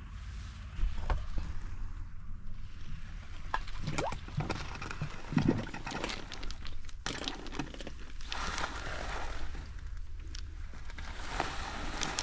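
Cesspool liquid sloshing and gurgling as a submersible fecal pump is lowered into it on its cord and hose. A few knocks and bumps come in the first half, then steadier splashing.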